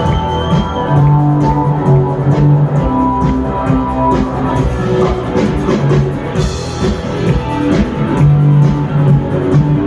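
Live rock band playing instrumentally, with electric guitar, bass guitar and drum kit.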